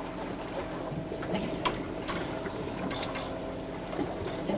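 Steady hum of the boat's machinery, with scattered small clicks and knocks from hands working a freshly caught fish on the deck.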